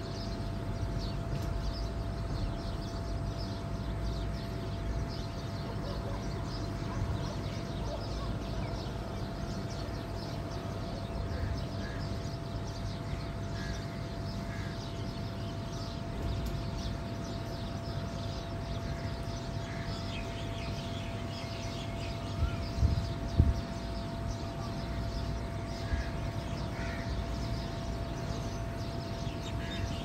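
Many small birds chirping in quick short notes, with a few lower calls later on, over a steady low outdoor rumble and a faint steady hum. A few low bumps sound briefly about 23 seconds in.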